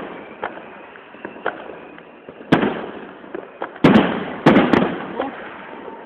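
Fireworks bursting overhead: loud bangs about two and a half, four and four and a half seconds in, each trailing off, with smaller crackling pops between them.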